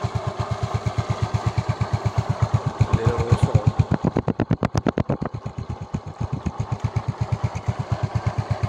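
Yamaha Mio i 125 scooter's single-cylinder fuel-injected four-stroke engine idling on its stand, its exhaust pulsing evenly at about ten beats a second and briefly sharper and louder about four seconds in. The engine is reported to be smoking again after an earlier block change and is due for a new cylinder block kit.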